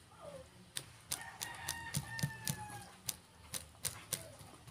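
A rooster crowing once, one long call of about a second and a half that falls slightly in pitch at its end. Over it comes a run of sharp clicks from chewing close to the microphone.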